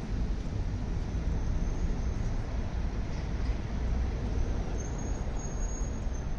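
Steady low background rumble with no distinct clicks or knocks.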